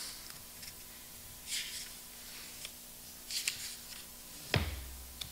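Quiet room tone with a few soft paper rustles at the pulpit, and a low thump about four and a half seconds in.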